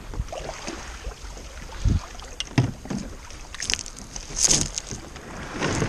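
Sit-on-top fishing kayak hull being hauled out of the shallows onto a pebble beach: irregular scraping, knocking and crunching on the stones, with a louder crunching scrape about four and a half seconds in.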